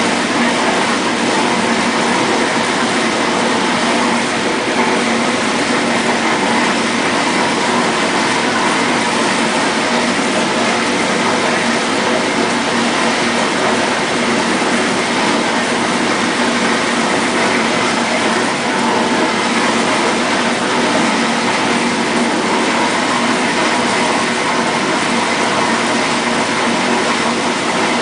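1958 GE Mobile Maid dishwasher running its wash cycle: a steady, unbroken rush of water spraying inside the tub over the hum of the motor.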